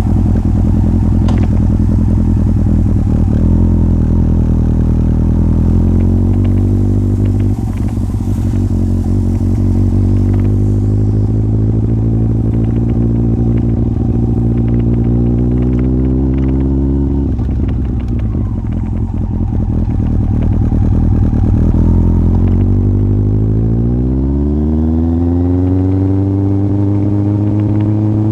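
Yamaha Fazer 1000's inline-four engine running through an aftermarket MIVV exhaust while riding. The engine note climbs slowly, drops abruptly a little past halfway, then rises steeply again near the end and levels off.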